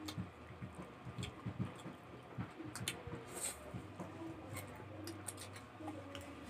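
Faint close-up eating sounds: sotanghon glass noodles slurped and chewed, with scattered small clicks of chopsticks and spoons and a short slurp about three and a half seconds in.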